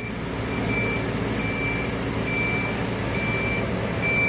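A 100-ton mobile boat hoist running, its engine getting louder in the first second, while its warning beeper sounds a steady high beep about once a second.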